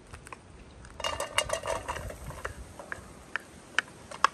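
Chopped onions scraped with a wooden spatula off a wooden board into a granite-coated pot. A dense clatter comes about a second in, then a few sharp single taps of the spatula near the end.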